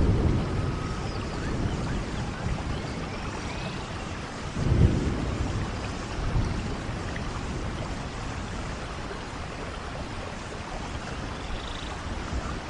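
Steady rain falling on forest leaves and ground, an even hiss throughout. Deep low rumbles swell and fade at the start and again about five seconds in, with a weaker one shortly after.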